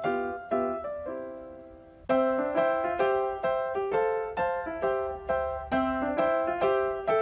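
Background piano music: a gentle melody of struck notes, a few a second. A held chord fades about a second in, and the playing picks up again about two seconds in.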